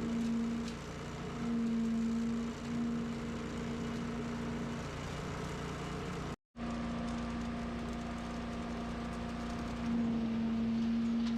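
Small gasoline engine of lawn equipment running steadily, a constant hum under a rushing noise, with a brief silent break about six seconds in.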